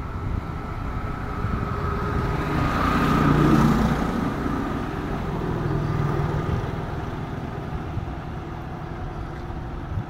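A motor vehicle's engine passing, growing louder to a peak about three and a half seconds in and then fading away.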